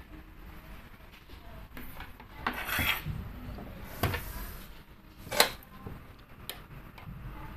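A BenQ W1070+ projector's plastic casing being handled and turned over on a desk: a scraping slide about two and a half seconds in, then sharp knocks about four and five and a half seconds in, the second one the loudest.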